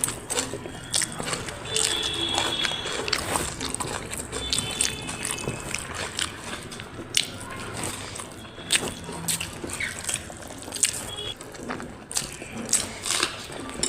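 Close-miked eating sounds: chewing with frequent short wet mouth clicks and smacks as rice and egg curry are eaten by hand.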